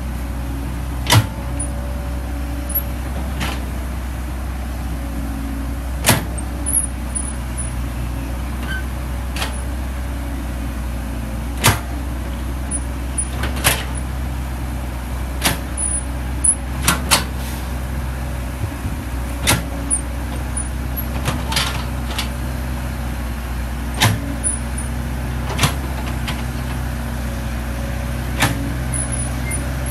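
Diesel engine of a Caterpillar tracked excavator running steadily while digging and spreading mud, with irregular sharp metallic clanks every second or few seconds as the boom and bucket work.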